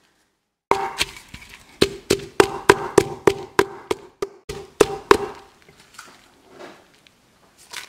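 Wooden pestle pounding garlic and dried red chillies in a clay mortar: a run of sharp knocks, about three a second, each with a short ring from the mortar, growing lighter in the last few seconds.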